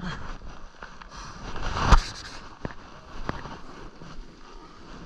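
Snowboard sliding and scraping over snow with wind on the microphone; the scrape builds to a hard thump about two seconds in, followed by a couple of sharp clicks.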